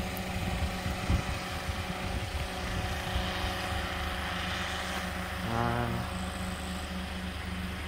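Engine and rotor of an unmanned crop-spraying helicopter, droning steadily while it sprays pesticide.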